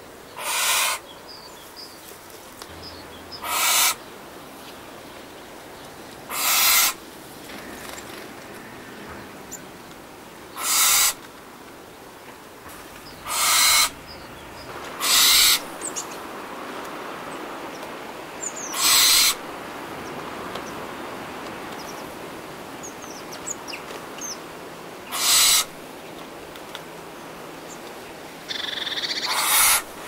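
An owl screeching: harsh, hissing shrieks about half a second long, eight of them a few seconds apart over a faint steady background hiss, with a longer, rougher call near the end.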